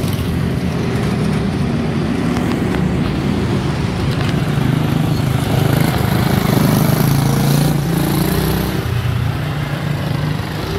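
Several quarter midget race cars with Briggs & Stratton Animal single-cylinder engines running at racing speed, their engine notes shifting in pitch as the cars go around the track. The sound is a little louder about six to eight seconds in.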